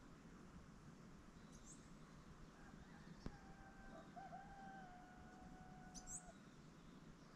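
Faint roosters crowing in the distance, long drawn-out calls overlapping in the middle, with a few short high bird chirps about six seconds in and a single click about three seconds in.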